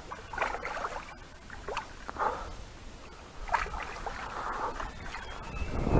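A large carp thrashing at the surface beside a landing net in shallow water, several short irregular splashes as it refuses to go into the net.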